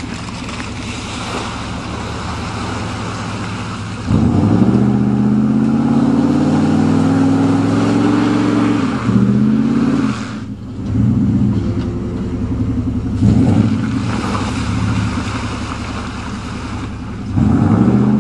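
Dodge pickup truck's engine revving hard in repeated surges, about four times, each climbing in pitch, as the truck is driven through mud in two-wheel drive.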